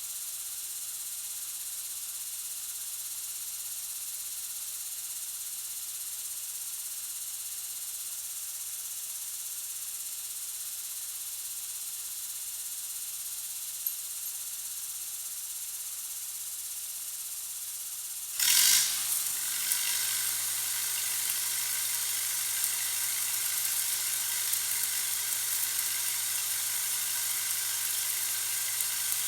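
A steady hiss, then about eighteen seconds in a sudden louder start and a crackling sizzle with small pops: a stick-welding arc burning.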